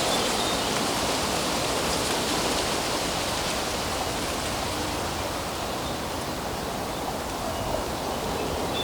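Steady rushing outdoor background noise, with a few faint bird chirps, about once early on and again near the end.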